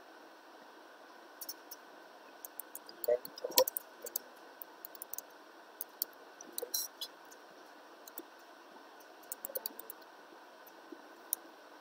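Computer keyboard keys being typed: irregular light clicks in short runs of keystrokes with brief pauses between them.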